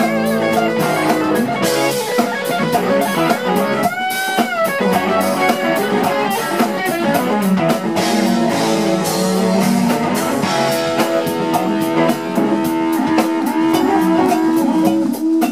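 Live instrumental funk played by a full band: electric guitar over a steady drum groove, with bass and percussion.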